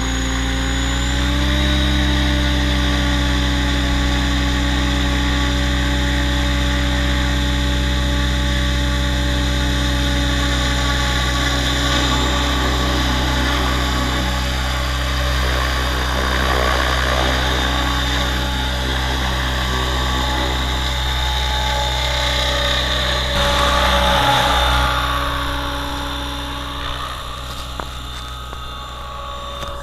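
Electric RC helicopter (T-Rex 600 ESP with a Kontronik Pyro brushless motor) running at flight speed: a steady whine and rotor hum that rises slightly in pitch about a second in, then holds steady as it lifts off and flies. The sound changes and gets quieter in the last few seconds as the helicopter flies farther off.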